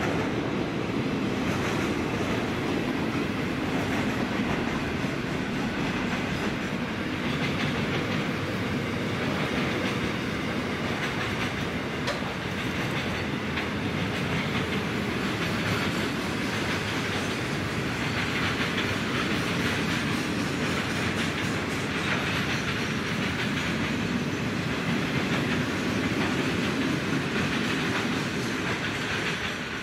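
Steel-carrying freight wagons rolling steadily past, a continuous rolling rumble with the clatter of wheels over rail joints.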